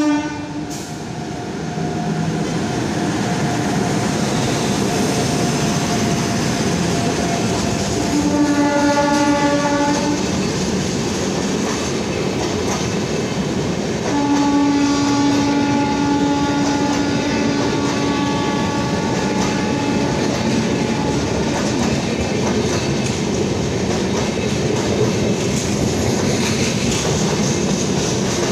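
A WAP-7 electric locomotive hauling a double-decker passenger train runs past with a steady rolling rumble and wheels clicking on the rails. Its horn sounds three times: the end of a blast right at the start, a two-second blast about eight seconds in, and a longer blast of about seven seconds from around fourteen seconds in that fades away.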